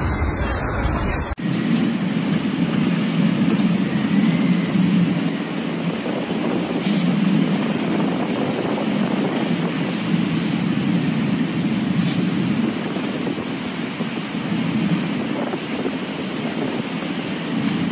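A rainstorm with strong wind: a steady rushing noise with a low rumble that surges and eases, starting abruptly about a second and a half in.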